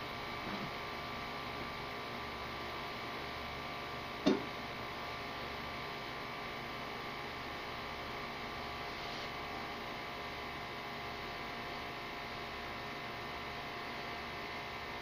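A steady hum with several faint steady tones running through it, and a single sharp knock about four seconds in.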